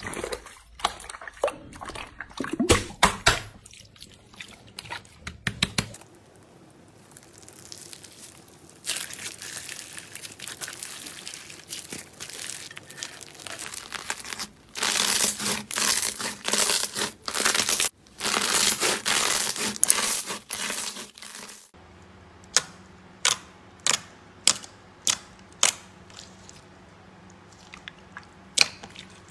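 Hands pressing, stretching and squishing slime: a quick run of sharp sticky pops and clicks, then a long stretch of crackling, tearing noise, then separate sharp pops near the end as clear jelly slime with glitter is pressed flat.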